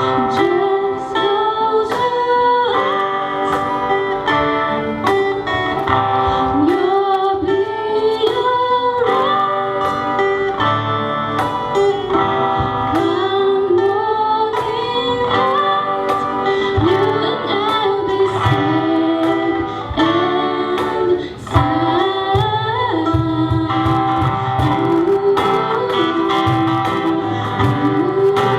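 Live band performing a song: a singer over guitars and drums.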